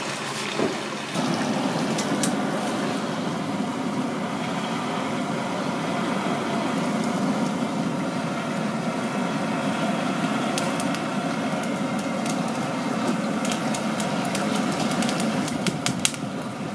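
Large oysters in the shell grilling on a perforated metal plate over charcoal: a steady low hissing noise of the fire and cooking shells, with scattered sharp clicks and pops, more of them near the end, as metal tongs handle the shells.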